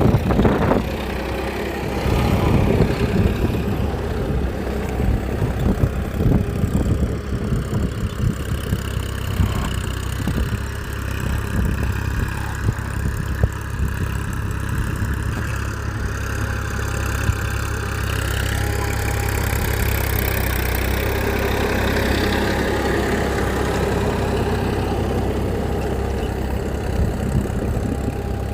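A small engine running steadily with a rapid, even pulsing; its tone shifts about two-thirds of the way through.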